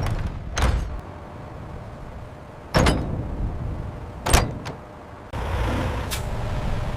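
Low machinery rumble with several sharp clanks and knocks, typical of a pallet being moved in on a loading line. The rumble gets louder about five seconds in.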